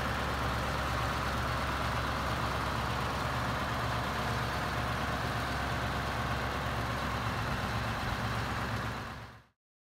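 Scania R164's 16-litre V8 diesel running steadily as the heavy tractor unit pulls its low-loader trailer slowly forward. The sound fades out about nine seconds in.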